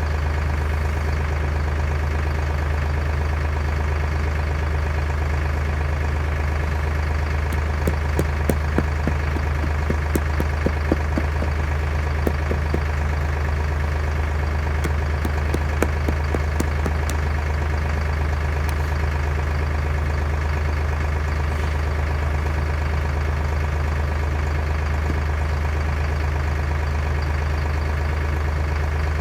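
An engine running steadily at idle, with a scattering of sharp clicks and knocks over it for several seconds in the middle.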